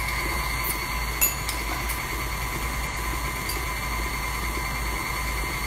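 KitchenAid Artisan stand mixer running steadily with a steady motor whine as it whips a royal-icing glaze of meringue powder, powdered sugar and a little water.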